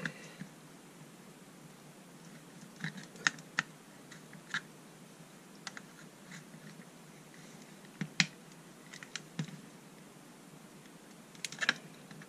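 Scattered sharp clicks and cracks as a flat-blade screwdriver pries at the seam of a Black & Decker cordless screwdriver's plastic clamshell casing. The halves are still held by a screw with its head drilled away, which the owner suspects was glued in. The clicks come singly and in small clusters, with a quick run near the end.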